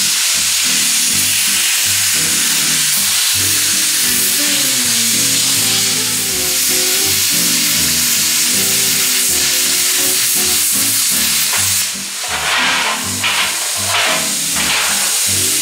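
Plasma cutter hissing steadily as its arc cuts through sheet metal. It stops about twelve seconds in, then hisses again in a few short bursts. Background music plays underneath.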